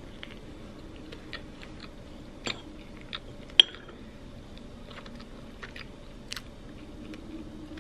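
A metal spoon clinks against a glass jar while scooping out jam, the sharpest clink about three and a half seconds in. Scattered small clicks and soft eating sounds go on around it over a low steady hum.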